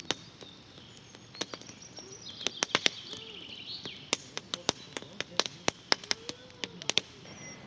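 Campfire crackling, with sharp irregular pops and snaps from the burning wood. Birds chirp faintly in the background for a second or two in the middle.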